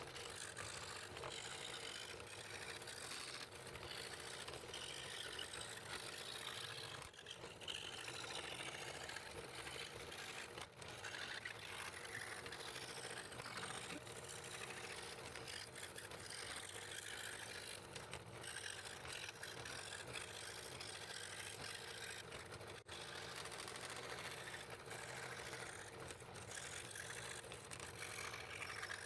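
Scroll saw running steadily, its fine blade cutting fretwork in a purpleheart board.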